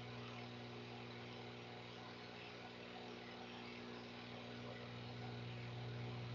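Faint steady electrical hum with a constant hiss underneath, the background noise of the recording, with no other sound.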